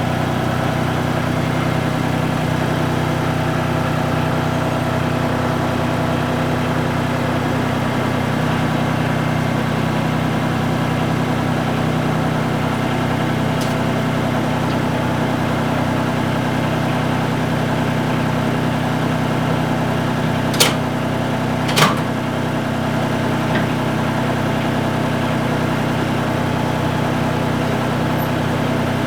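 Steady low machine hum made of several fixed tones, unchanging throughout. Two sharp clicks about a second apart come about two-thirds of the way through.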